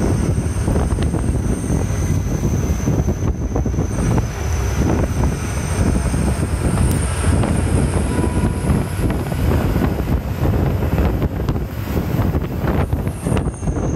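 Ashok Leyland diesel bus under way on the road: a steady, loud engine and road rumble with some wind noise.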